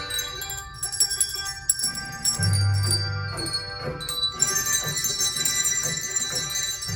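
Handbell choir ringing a Christmas tune: bells struck one after another and left to ring, their tones overlapping, with a low held note sounding briefly in the middle.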